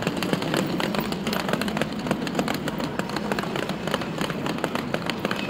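Steady rumble of a busy bus station with coaches standing at the platforms, overlaid with dense crackling and clicking from a handheld phone microphone carried at a brisk walk.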